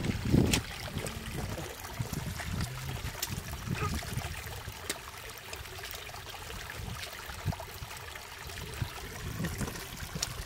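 Shallow muddy stream water trickling, with small splashes and sloshing as hands and a woven bamboo basket scoop in it. Two low thumps at the start, as rubber boots step into the wet mud.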